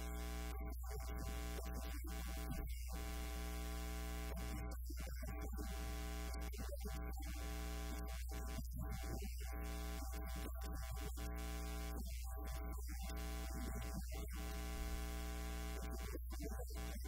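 Steady electrical mains hum with a buzz of many evenly spaced overtones, from a faulty audio feed; it drowns out the speech from the podium microphone.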